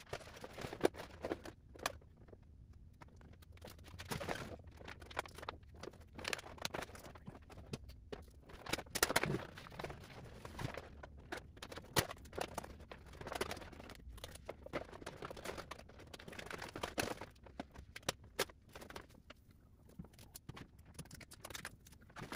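Irregular small clicks, taps and light scrapes of hands working on parts of a golf cart, over a faint low hum.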